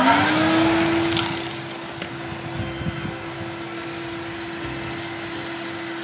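Eureka Forbes Euroclean Bullet 1300 W vacuum cleaner switched on as a blower: its motor spins up with a rising whine in the first second, then runs steadily with air rushing out of the hose nozzle.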